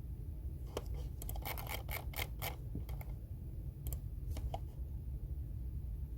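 Computer keyboard typing: a quick run of key clicks about a second in, then two single key presses near the middle, over a steady low hum.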